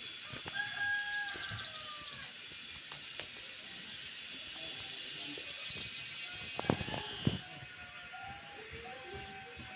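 Birds calling: short, fast high trills repeat every few seconds, with longer held calls that fall slightly in pitch lower down. Two sharp knocks sound about seven seconds in.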